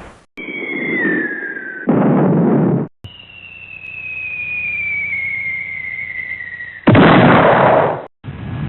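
Falling-bomb sound effects: a high whistle sliding down in pitch, then an explosion that cuts off after about a second. It plays twice, the second whistle longer and its explosion louder, and a third begins near the end.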